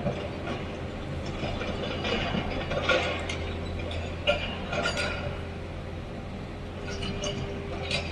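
Sany excavator's diesel engine running with a steady low hum, with repeated short metallic clinks and scrapes over it, the sharpest about three seconds and four and a half seconds in.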